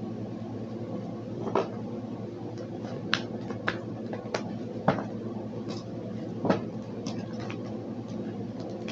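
Tarot cards being shuffled and handled: light clicks and snaps every second or so over a steady low hum.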